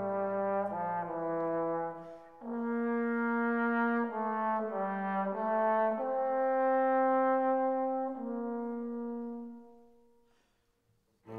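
Background music: a slow melody of long held notes on brass-like instruments, fading out near the end.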